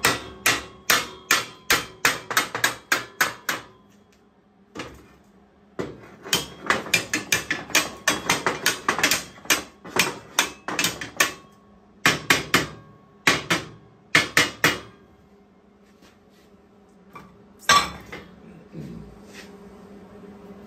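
Hammer blows on a galvanized steel Unistrut channel frame, knocking the pieces together: quick runs of sharp strikes at about four or five a second, a pause, a longer run, three short clusters, then one last hard blow.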